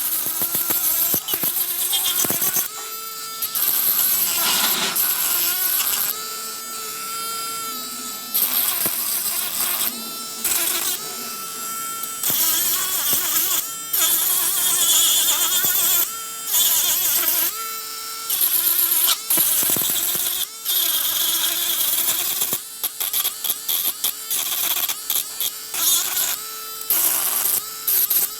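Mini electric polishing and sanding machine running, a steady whine broken by scratchy grinding in repeated short passes of a second or two as the abrasive works the rough body putty of a miniature car body smooth.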